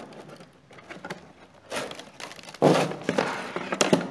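Fabric hook-and-loop straps ripped open and a plastic steam-cleaner floor brush lifted out of its moulded plastic carry case. The sound is rasping and crackling with plastic knocks, in two bouts, the longer one starting a little past halfway.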